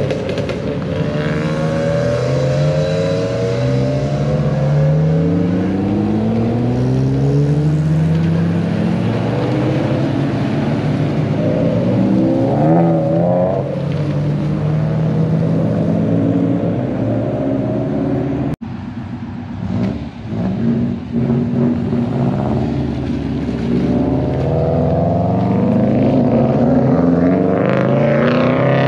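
Sports-car engines revving hard as cars pull away one after another, each engine's pitch climbing through a run of upshifts. The sound cuts out for an instant about two-thirds of the way through.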